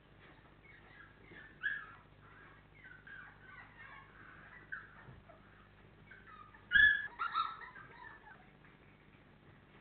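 Litter of four-week-old Labrador Retriever puppies whining, short high calls on and off for the first five seconds, then a louder cluster of cries about seven seconds in.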